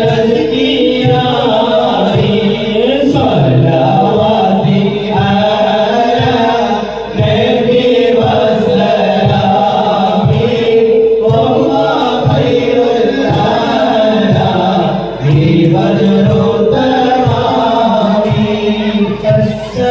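A group of men singing a devotional Islamic song together in chorus, amplified through microphones.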